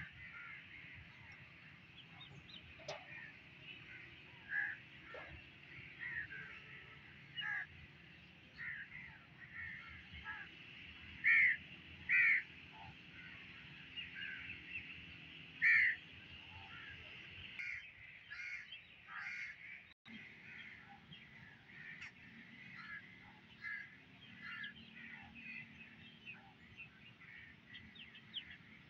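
Birds calling: many short calls, scattered and overlapping, with a few louder ones near the middle.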